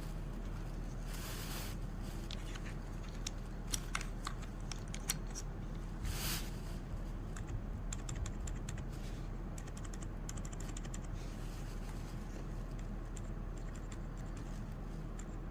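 Keyboard keys being pressed, giving irregular short clicks and clacks over a steady low hum.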